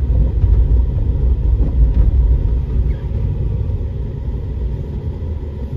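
Steady low rumble of a car driving, heard from inside the cabin, easing slightly about halfway through.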